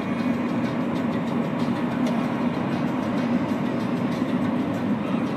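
Steady engine and road noise from a moving car, heard inside its cabin.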